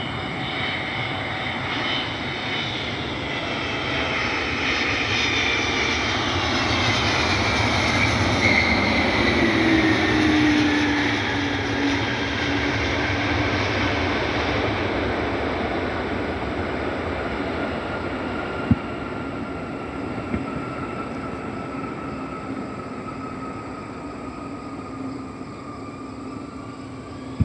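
United Boeing 777-200's twin jet engines as the airliner passes on its arrival: the noise swells to a peak about a third of the way through, its whine sliding down in pitch as it goes by, then slowly fades. Two brief sharp clicks come about two-thirds of the way through.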